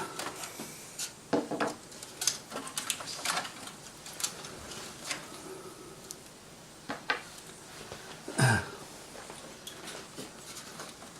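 Scattered small clicks, clinks and rubbing from handling computer hardware and tools, with a louder knock about eight and a half seconds in.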